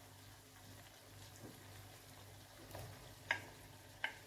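Sliced onions sizzling faintly in oil in a frying pan. About three seconds in and again near the end come sharp knocks as a wooden spoon scrapes diced red and green pepper from a plastic container into the pan.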